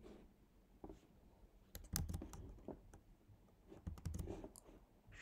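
Faint, scattered clicking on a computer: a few single clicks and two quick runs of clicks about two and four seconds in.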